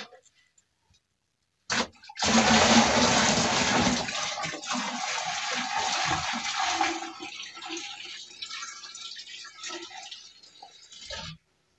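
Grain-mash wash poured into a 5-gallon fermenting bucket: a heavy splashing pour starts about two seconds in, runs for several seconds, then thins to a trickle and drips.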